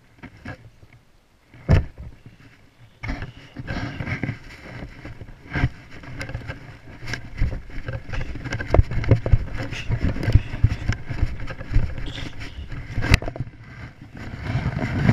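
Handling noise on a small camera: one sharp knock, then from about three seconds in a steady run of rustling and scraping with many clicks and low thumps as it is moved and rubbed against.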